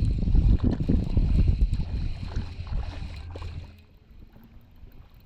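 Wind gusting over the microphone in a loud, irregular rumble that cuts off sharply about three and a half seconds in, leaving a quiet background.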